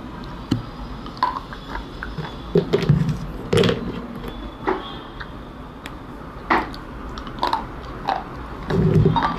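Crunchy biting and chewing of slate: irregular sharp cracks, roughly one a second, several with a dull low thump as the pieces are crushed between the teeth.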